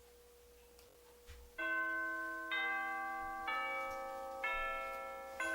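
Bell-chime music playing back: a slow run of struck bell-like notes, about one a second, each ringing and fading, starting after a second and a half of near silence.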